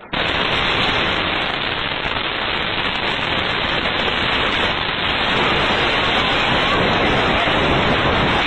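Loud, dense crackling hiss that starts abruptly and holds steady, with no single bang standing out.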